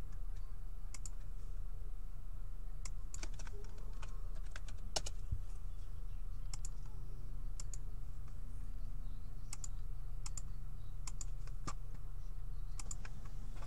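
Irregular keystrokes on a computer keyboard, a few taps at a time with pauses between, over a steady low hum.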